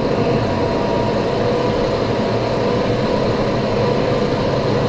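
Lathe running steadily with an even mechanical hum and a steady whine, turning a cement truck's vacuum compressor housing while it is checked for runout before boring.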